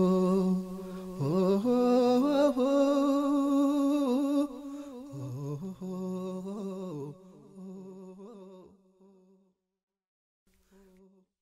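Wordless a cappella nasheed outro: layered male voices hold a steady low note under a bending melody, then fade out about nine seconds in, with a brief faint held note near the end.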